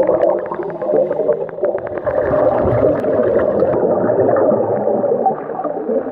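Diver breathing through a regulator, recorded underwater: exhaled air bubbling and gurgling out of the exhaust, muffled by the water, with a fast run of clicks in the first two seconds.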